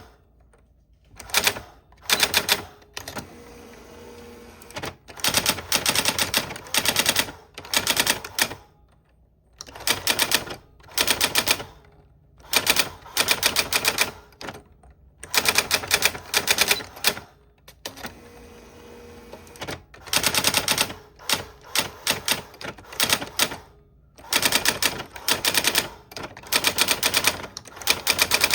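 Old typewriter being typed on: bursts of rapid, sharp keystrokes, each run lasting a second or two, separated by short pauses.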